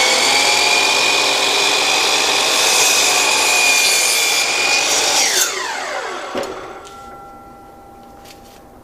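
Hercules miter saw running at full speed as its blade cuts a 45-degree miter through a board. About five seconds in the motor is switched off and winds down with a falling whine, leaving the quieter steady hum of a shop vacuum.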